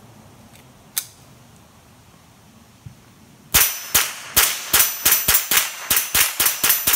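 Glenfield-made Marlin Model 60 semi-automatic .22 LR rifle fired in a fast, even string, about three shots a second, starting about three and a half seconds in. A single sharp click comes about a second in.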